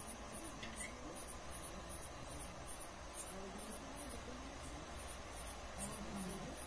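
Crickets chirping in a steady high-pitched rhythm, about two chirps a second, over a faint low hum.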